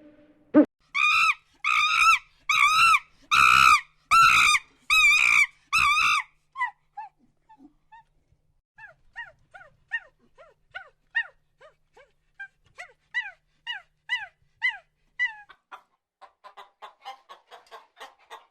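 Animal calls: about seven loud, evenly spaced calls in the first six seconds, then a long run of short, fainter falling chirps, several a second.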